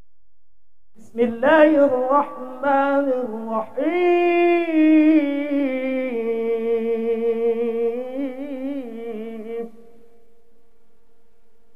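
A man's voice chanting Quranic recitation (tilawah) into a handheld microphone. It is one melodic phrase of long held notes with wavering ornaments, starting about a second in and ending shortly before the tenth second. A faint steady hum fills the pause before and after the phrase.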